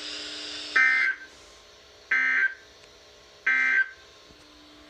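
NOAA Weather Radio SAME end-of-message data bursts: three short, raspy digital squawks about a second and a third apart, marking the end of the weekly test broadcast. They come after a moment of steady receiver hiss.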